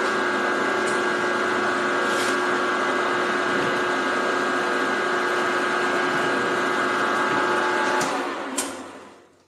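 Milling machine running, its spindle turning a countersink that chamfers and deburrs the edge of a tapped hole in a steel part: a steady motor and gear whine with a few sharp ticks of the cut. The whine stops about eight seconds in and the sound dies away as the spindle is shut off.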